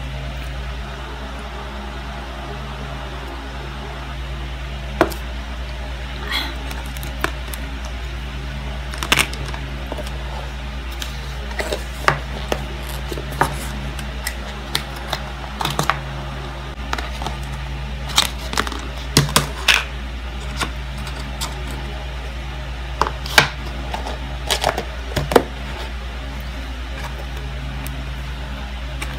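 Close-miked eating sounds: scattered short clicks and smacks over a steady low hum.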